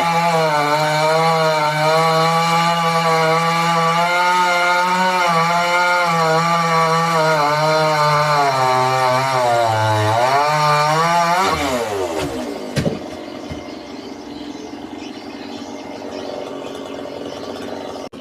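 Two-stroke chainsaw at full throttle cutting wood, its pitch wavering under load. About eleven seconds in the throttle is released and the engine winds down to idle, with a single knock just after.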